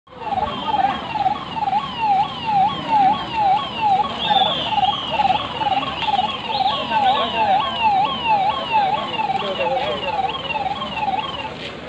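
Ambulance's electronic siren in a fast yelp, each cycle dipping and rising in pitch about twice a second; it eases off a little near the end.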